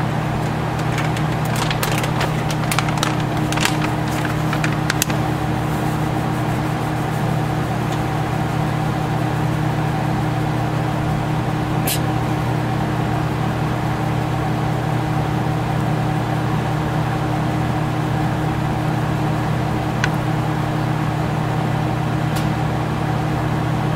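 A steady mechanical hum throughout, with crinkling clicks from a plastic bag being handled in the first few seconds and a few single ticks later on.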